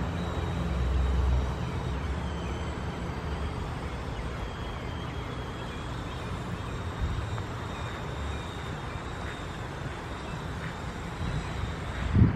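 Steady outdoor rumble and hiss, with one sharp thump near the end.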